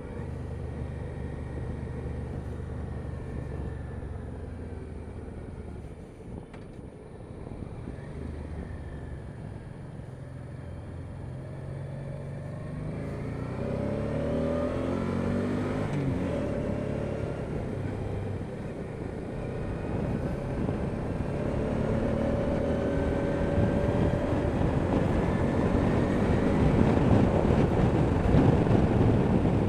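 1999 Honda Deauville NT650V's V-twin engine running on the move under wind noise. The revs climb in several rising sweeps about halfway in, and the engine grows louder toward the end.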